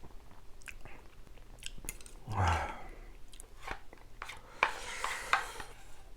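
A person chewing food close to the microphone, with wet mouth clicks throughout. About two and a half seconds in there is a louder low thud, and around five seconds in a longer, noisier stretch of chewing.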